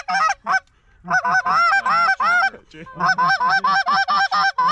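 Rapid, loud series of short goose honks and clucks, about six or seven a second, in three runs broken by brief pauses about a second in and near three seconds in.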